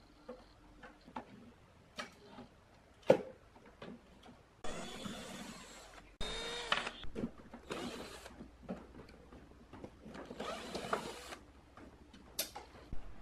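Cordless drill/driver whirring in four short bursts as it backs screws out of a power amplifier's metal rear panel. Scattered clicks and a sharp knock come from the metal chassis being handled.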